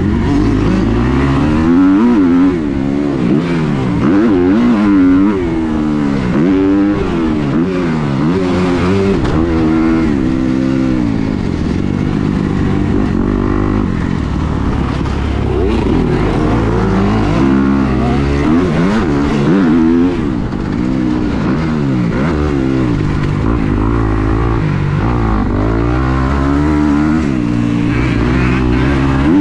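Motocross bike engine heard from the rider's seat, revving up and dropping back over and over as the throttle is opened and closed through the corners and straights of a dirt track.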